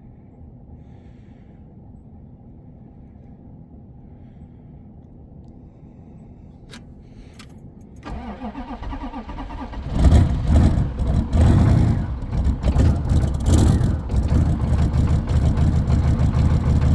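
Glow-plug diesel engine cold-starting: after several quiet seconds the starter cranks it for about two seconds, then it catches about ten seconds in and runs loud and uneven.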